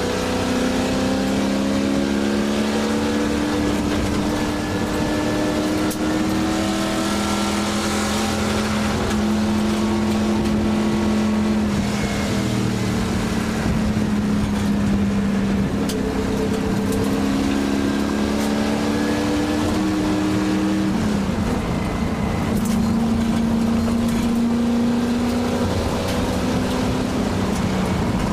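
A 1967 Shelby GT350's V8 heard from inside the cabin, pulling hard uphill at race pace. Its pitch climbs slowly, then breaks and drops at gear changes about 12 and 21 seconds in and again at the very end.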